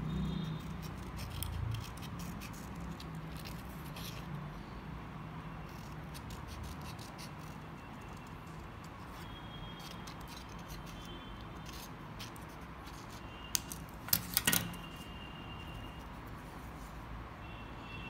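Scissors snipping through thin craft paper as a small beak shape is cut out, over a steady low hum, with a couple of sharp clicks about fourteen seconds in.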